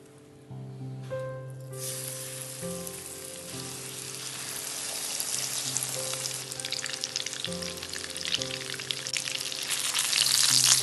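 Breaded chicken breasts frying in hot sunflower oil in a pan. The sizzling starts about two seconds in and grows louder toward the end, with dense crackling.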